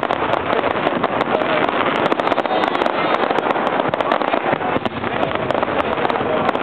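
Fireworks display: a dense, unbroken run of bangs and crackling from many shells bursting at once.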